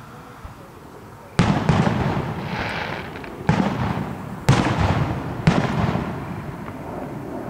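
Aerial firework shells bursting: after a quiet start, a series of sudden loud booms about a second apart, each trailing off in a long rolling echo.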